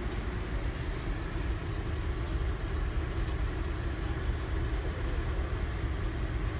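Steady low rumble and hiss of indoor background noise, with no distinct event standing out.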